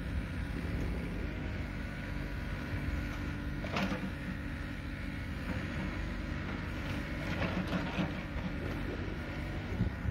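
Hannix NX580 mini excavator's four-cylinder diesel engine running steadily while the boom and bucket are worked, with a few short knocks, the clearest about four seconds in.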